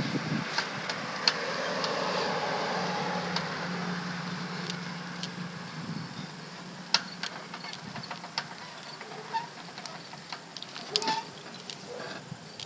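A vehicle passing, its noise swelling and fading over the first six seconds, with scattered sharp ticks throughout.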